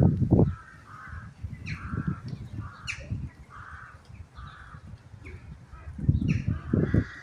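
Crows cawing over and over, short harsh calls coming every half second to a second. Low rumbling bursts, the loudest sound, come right at the start and again about six seconds in.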